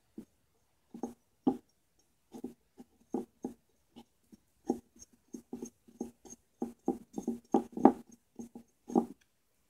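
Paintbrush dabbing and stroking on a small ceramic piggy bank, heard as an irregular string of short soft taps and scrapes. They come about two or three a second and grow busier about halfway through.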